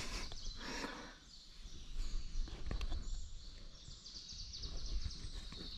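Outdoor background noise with a low rumble on the microphone. From about two seconds in there is a faint, rapid, high-pitched ticking.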